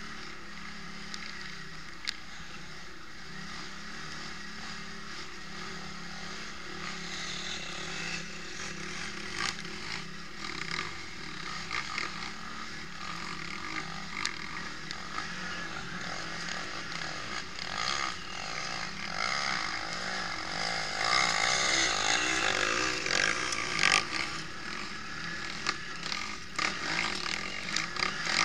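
Quad bike (ATV) engine running at speed over a rough dirt track, heard from a camera mounted on the machine, with wind noise and many sharp clicks and knocks from the bumpy ground. The noise grows louder from about two-thirds of the way through.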